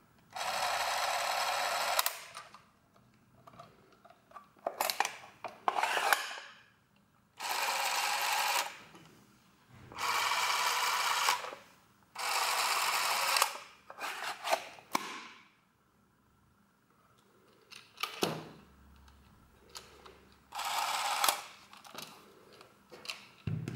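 Kodak M4 Instamatic Super 8 movie camera's battery-driven motor running in five separate spells of one to two seconds each, each starting and stopping sharply. Clicks and rattles from handling the camera's grip and cartridge door come between them.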